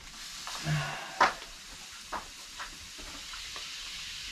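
Dry chlorine being poured from a bag into a well casing to shock-sanitize the well: a steady hiss of granules running in, with one sharp click about a second in and a few faint ticks.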